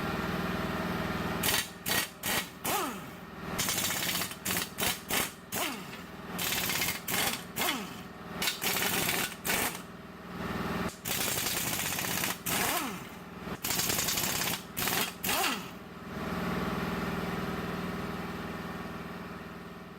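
Impact wrench run in many short rattling bursts while loosening engine bolts, several bursts ending in a falling whine as the tool's motor spins down, over a steady hum that carries on alone near the end.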